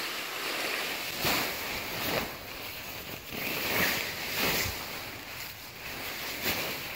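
Large nylon leaf bag being handled and tipped out: the fabric rustles and dry leaves slide and spill out in a series of swishing rushes.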